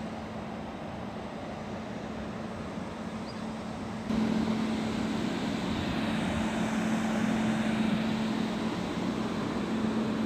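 Indian Railways electric locomotive hauling a train of tank wagons: a steady hum and rumble that steps up louder about four seconds in.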